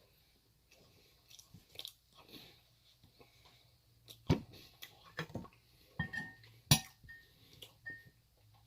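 Close-miked eating: chewing and biting on a mouthful of curry and naan bread, with soft wet mouth clicks and two sharper clicks about four and a half and nearly seven seconds in.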